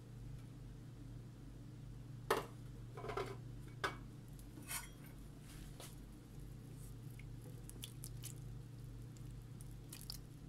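A few short knocks and clinks of a utensil against a pressure cooker pot as the rice inside is checked for doneness, over a steady low hum.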